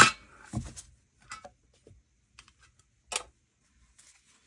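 A pocket oracle card deck being picked up and handled: a few separate sharp clicks and taps of card stock, the loudest at the start, a dull knock about half a second in, and another sharp click a little after three seconds.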